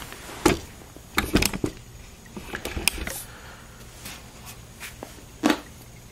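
Hands handling a computer case at its 5.25-inch drive bays, giving a few sharp knocks and clicks of plastic and metal. There is one about half a second in, a quick cluster of them around a second and a half, and another about five and a half seconds in.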